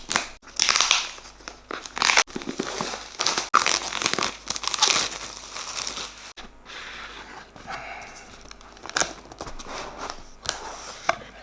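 Sealed packaging wrap being torn open and crumpled off a keyboard box, in irregular crinkling, tearing rustles.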